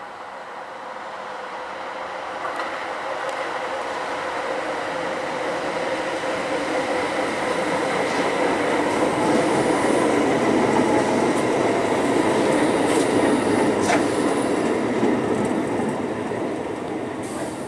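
Tyne and Wear Metrocar (BR Class 994) running in along the platform: wheels on rail and motors growing steadily louder as it approaches and passes, with a steady whine, and a sharp click about fourteen seconds in.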